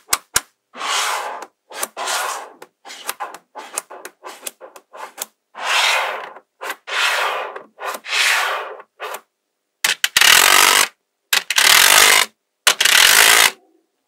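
Small magnetic balls clicking and rasping against one another as strips of them are set down and pressed into a mat of balls, in a run of short bursts. Near the end come three longer, louder rattling runs.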